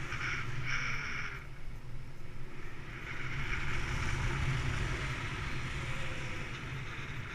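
Rushing airflow buffeting a paraglider pilot's camera microphone in flight: a steady low rumble of wind, with a brighter hiss for about the first second.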